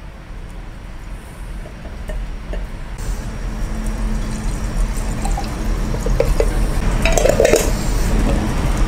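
Bourbon poured from a plastic measuring jug into a glass jar of cherry pits, the pour sound growing steadily louder as the jar fills. Near the end come a few clinks as the jar's lid is screwed on.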